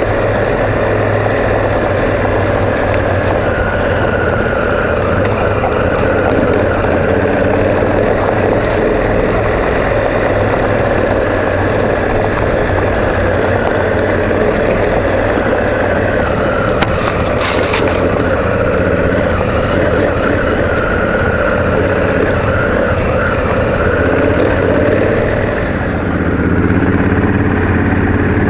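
Onboard sound of a Honda Africa Twin CRF1000's parallel-twin engine running steadily on a gravel track, mixed with wind rush and the crunch of tyres on gravel. A brief rattle comes about two-thirds through, and near the end the engine note dips and then rises.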